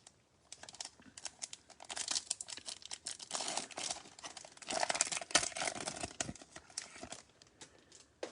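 Crinkly foil wrapper of a Bowman Chrome card pack being torn open and handled: dense, irregular crackling that goes on for several seconds.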